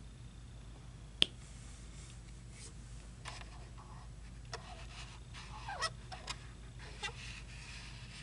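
Small clicks and taps of a diamond painting placer pen picking up drills and setting them on the canvas: one sharp click about a second in, then a scattering of lighter taps in the second half, over a low steady hum.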